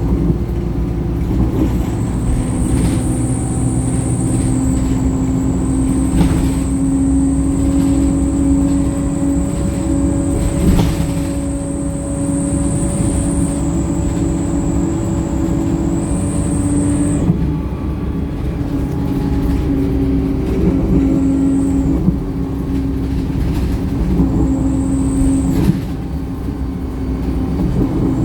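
Wright StreetLite single-deck bus on the move, heard from inside: its four-cylinder Cummins diesel runs with a steady drone, and a high whine drops out about 17 seconds in and comes back briefly near the end. A few short knocks sound over it.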